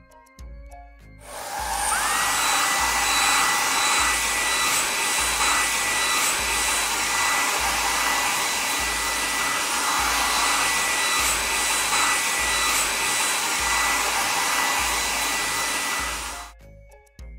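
Hair-dryer-style air blower running: a rushing hiss of air with a whine that rises as it spins up and then holds steady. It starts about a second in and cuts off about a second before the end.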